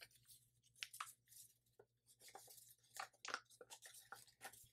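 Faint rustling and crinkling of a thin sheet of folded paper being unfolded and handled: a scatter of soft, irregular crackles.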